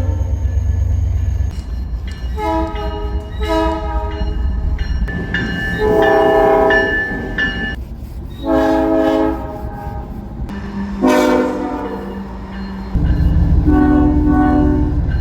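Train horns sounding a series of blasts, several notes at once: two short ones, then four longer ones of one to two seconds each, over the low rumble of the train.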